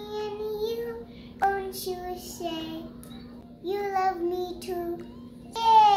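A toddler girl singing in a high voice, wordless to the ear, in short phrases of held, wavering notes with pauses between them, ending on a loud note that slides downward.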